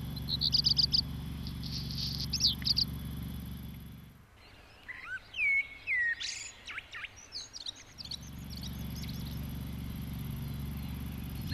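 Songbirds chirping and singing: a quick run of repeated high notes at the start, then scattered calls and a cluster of varied whistles and sweeping notes in the middle. A steady low rumble runs underneath, dropping out for a few seconds in the middle.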